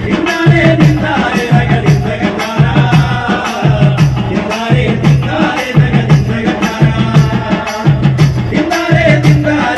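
Live folk band through a PA: a man singing the lead into a microphone over a steady, repeating amplified drum beat.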